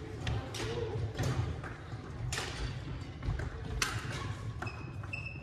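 Badminton rally: rackets striking a shuttlecock about four times, roughly a second apart, over footsteps on a hardwood gym floor, with a few short high squeaks near the end.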